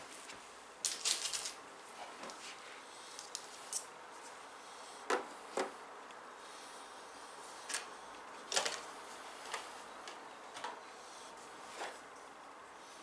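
Scattered small clicks and rustles of computer hardware being handled, with a quick cluster of clicks about a second in and single sharper clicks every second or two after that.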